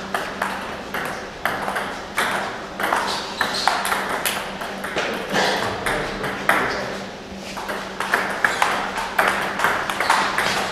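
Table tennis rally: the ping-pong ball clicking off the rubber-faced paddles and bouncing on the table, quick runs of sharp taps with short breaks between points.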